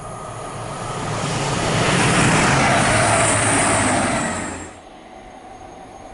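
A train passing at speed on the line: a rushing noise that swells over the first two seconds and stays loud, then cuts off suddenly about four and a half seconds in, leaving a quieter steady background.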